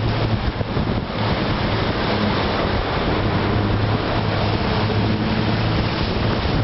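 Wind buffeting the microphone over the steady low drone of a fiberglass trimaran pontoon boat's engine running underway, with water rushing past the hull in choppy seas.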